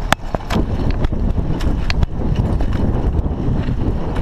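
Raleigh Ascent mountain bike rattling over a rough dirt trail: tyres rumbling on the ground with loose knocks and clicks from the bike, several sharp ones in the first second, over wind noise on a chest-mounted camera's microphone.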